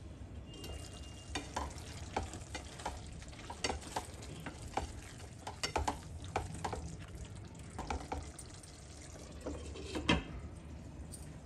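A spatula stirring and scraping chicken curry in a nonstick kadai, with the curry sizzling underneath, in a run of irregular clicks and scrapes. A glass lid knocks back onto the pan about ten seconds in, the loudest sound.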